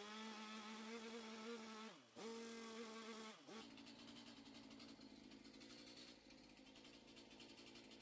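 Faint two-stroke engine of a Stihl chainsaw running at high speed as a steady buzz. Its pitch dips and recovers twice, about two and three and a half seconds in. Then it gives way to a fainter steady hum.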